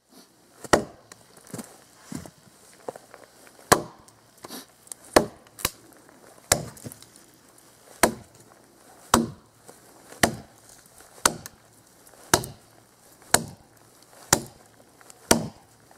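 Cold Steel Trail Hawk tomahawk chopping into a dead log with sharp wood strikes about once a second. The first few blows are lighter.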